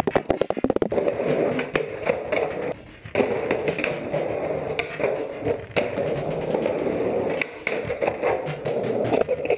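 Clicks and knocks of an action camera being handled, then skateboard wheels rolling over rough concrete with occasional clacks of the board. The sound cuts out briefly about three seconds in.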